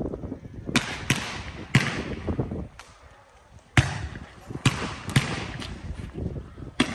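Fireworks display: about eight sharp bangs of rockets bursting, irregularly spaced, each trailing off in a hiss.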